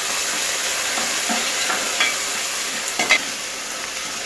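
Tomatoes and onion masala sizzling steadily in hot mustard oil in a pressure cooker while a metal ladle stirs them, scraping and knocking against the pot a few times, loudest about two and three seconds in.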